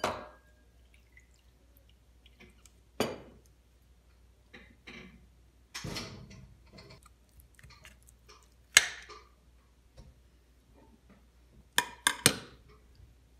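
Tableware being handled on a stone counter: scattered sharp clinks and knocks of a glass and ceramic dishes, the loudest a little before nine seconds in and a quick run of three near the end, with a brief pour of water onto the plate about six seconds in.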